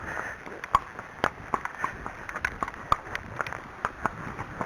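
Hoofbeats of a ridden Arabian horse: a run of sharp, uneven clops, about three a second.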